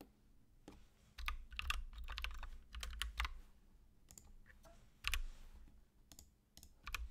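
Typing on a computer keyboard: a quick run of keystrokes from about one to three and a half seconds in, then a few single key taps.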